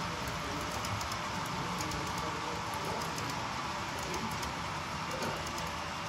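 Model freight cars rolling steadily along the track of a model railroad, a continuous rumble with light, irregular clicking of wheels over the rail joints.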